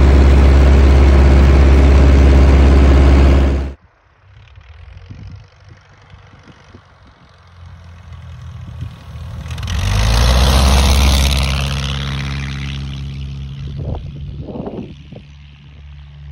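Steady, loud drone of a light aircraft's engine and propeller in flight, cutting off suddenly a few seconds in. After a quieter stretch, the Cessna 140's Continental C-85 engine grows loud, rising slightly in pitch, as the plane rolls past on the ground, then slowly fades.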